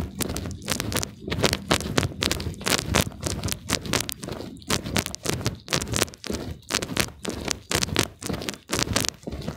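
Footsteps of a person walking at a brisk pace on a paved path, about two steps a second, with light scuffing between steps.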